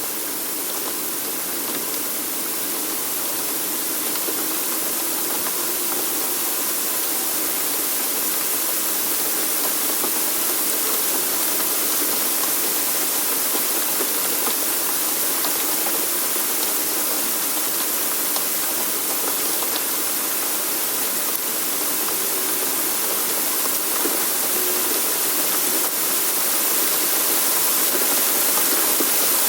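Steady rushing, hissing weather sound effect that slowly grows louder, with no distinct hits or gusts standing out.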